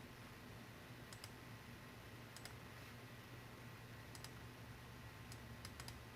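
Computer mouse clicking several times, some clicks in quick pairs like double-clicks, over a faint steady hum.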